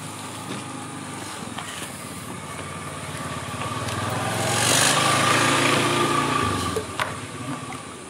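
A vehicle engine passing close by: it grows louder to a peak about five seconds in, then falls away near the end.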